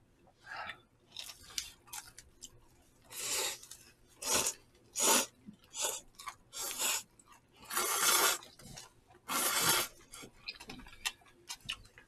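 Noodles being slurped from bowls of jjamppong soup: about six short, hissy slurps, the longest near the middle, with chewing and light chopstick clicks between them.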